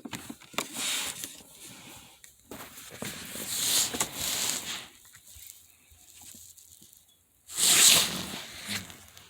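Rustling and scraping handling noise in irregular bursts, from hands working at parts; the loudest burst comes about three-quarters of the way through.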